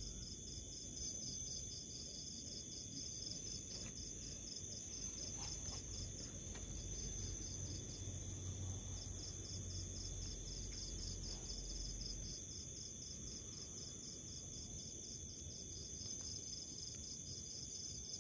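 House cricket chirping: a regular run of short, high chirps, several a second, that stops for about two seconds around seven seconds in and then resumes. A steady high-pitched ringing and a low hum lie beneath it; the hum fades out about two-thirds of the way through.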